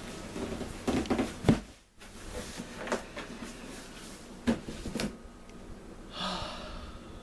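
Cardboard boxes knocking and scraping as an inner box is pulled out of a shipping carton and handled, with several sharp thumps in the first few seconds. A short breath is heard near the end.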